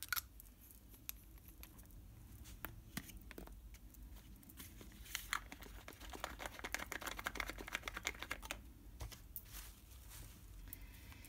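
Faint handling noise: scattered light clicks, with a dense stretch of quick ticking and crinkling in the middle.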